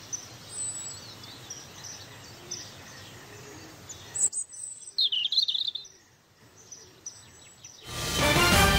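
Birds chirping over a faint outdoor hiss, with a louder burst of chirps about five seconds in. Music starts loudly near the end.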